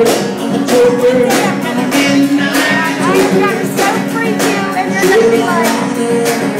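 Live acoustic guitar strumming with drums keeping a steady beat.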